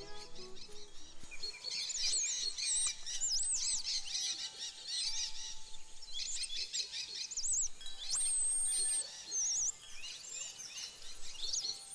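Many birds singing at once, a dense chorus of quick high chirps, trills and whistles that comes in about a second and a half in, with one long high whistle near the end, over soft background music.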